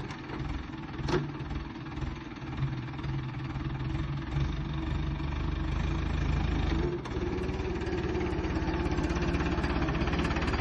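Mahindra Arjun tractor's diesel engine running under load as it drives and works a rear-mounted double-cylinder loader. The engine note changes and grows a little louder about seven seconds in, and there is a single short click about a second in.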